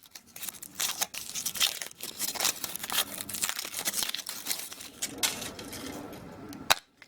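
Foil wrapper being torn and crinkled off a chocolate surprise egg: a continuous run of quick crackles and rips, with one sharp snap near the end.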